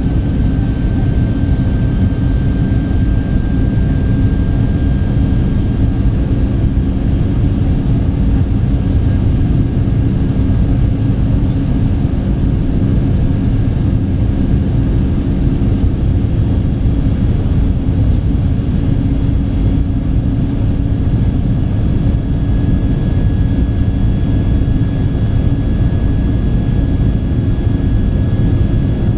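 Steady in-flight cabin noise of a Boeing 737-800: a low, even roar of the CFM56 engines and rushing air, with a faint steady high whine over it.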